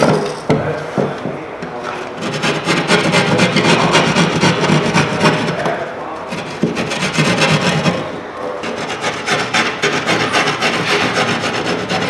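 Handheld drywall jab saw sawing back and forth through sheetrock in quick strokes, trimming the edge of an outlet cutout. The sawing comes in two spells with a brief let-up about halfway through.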